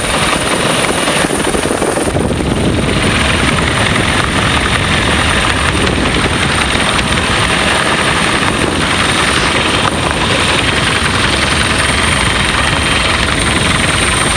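Agusta-Bell AB 412 twin-turbine helicopter in flight: steady, loud rotor and turbine noise, which turns brighter and fuller about two seconds in.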